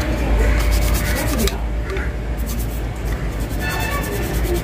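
A toothbrush scrubbing the plastic casing of a submersible aquarium pump, quick back-and-forth bristle strokes, in runs with a short pause in the middle.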